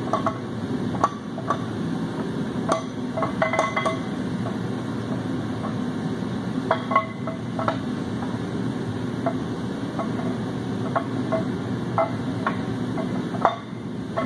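A steel camshaft being slid into a 7.3 Power Stroke diesel block, its lobes and journals clinking and ringing against the cam bearings and block bores at irregular moments as it is wiggled past each bearing.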